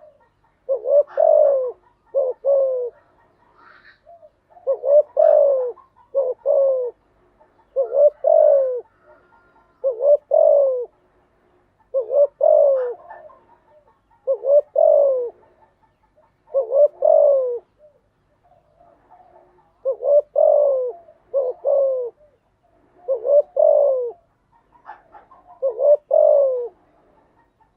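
Spotted dove cooing over and over in short phrases of two or three falling coos, a phrase about every two seconds: the bird's advertising call, played as a lure to set other doves cooing.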